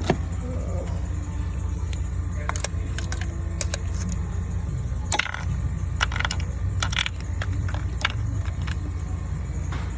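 Light metallic clinks and rattles from tools and a spark plug being handled, a dozen or so sharp clicks between about two and nine seconds in, over a steady low rumble.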